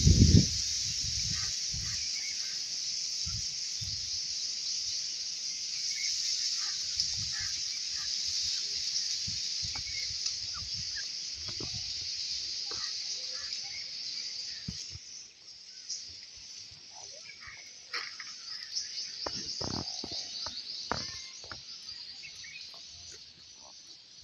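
Steady high-pitched insect buzzing, thinning out about two-thirds of the way through, with a low thump right at the start and a few more soft thumps and rustles near the microphone later on.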